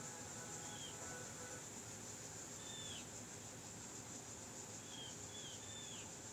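A small bird calling: about five short whistled chirps that slide down in pitch, one near the start, one near the middle and a quick run of three near the end, over a steady high hiss.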